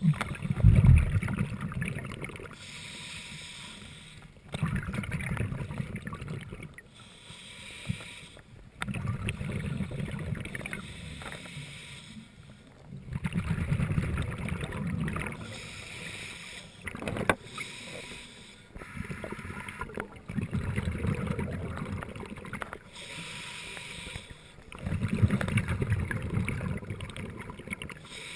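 Scuba diver breathing through a regulator underwater: exhaled bubbles bubbling out in bursts about every four seconds, with a quieter hiss of inhalation between them.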